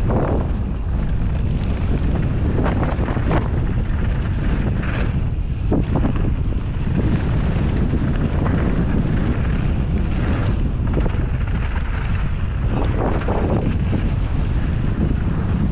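Wind buffeting the microphone during a fast mountain bike descent on a dirt and gravel trail, over the rumble of the tyres, with a few sharp knocks from the bike over bumps.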